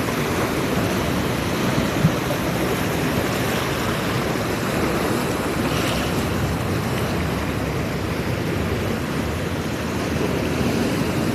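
Ocean surf washing on a beach: a steady, continuous rush of waves.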